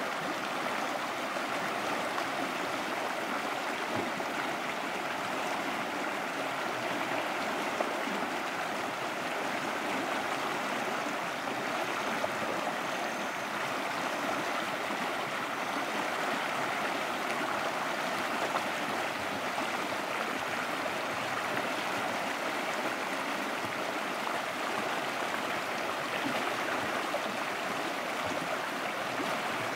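Shallow mountain stream running over rocks, a steady rush of water with white water breaking around the stones.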